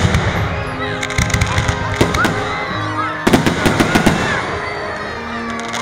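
Fireworks going off in volleys of rapid cracks: one at the start, another about one to two seconds in, and a loud one about three seconds in. Music plays underneath.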